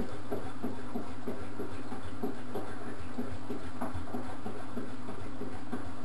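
Antonio Merloni EBD Classic 1000 front-loading washing machine running a vinegar descaling cycle with a high water level. The motor hums steadily while the turning drum sloshes and splashes the water in a repeating rhythm.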